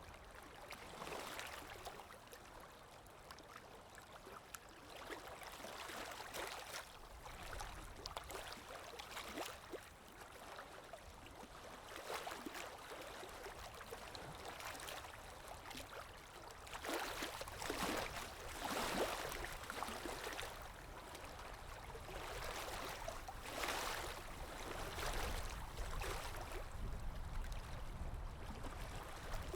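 Calm waves washing in, a steady watery hiss with gentle surges that swell and fade every few seconds, the strongest ones in the second half.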